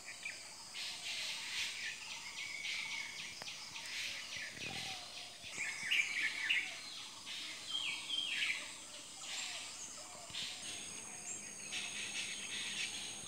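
Dawn chorus of many birds chirping and calling over one another from the trees. A steady, thin, high-pitched tone runs underneath and grows stronger in the second half.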